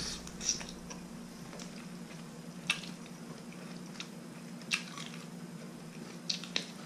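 A man eating a stewed chicken foot held in his hand: short wet smacks and sucking sounds from his mouth as he bites the meat off, coming every second or so, over a faint steady hum.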